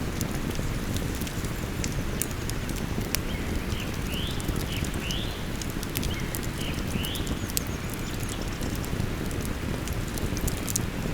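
Wood campfire crackling with frequent sharp pops over the steady rush of a flowing river. A bird gives a few short rising calls around the middle.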